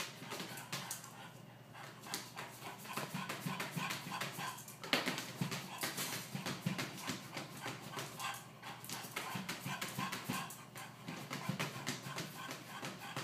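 A bulldog pawing at a plastic pet-food bin, his claws scraping and tapping on the plastic in quick repeated strokes, with a louder knock about five seconds in.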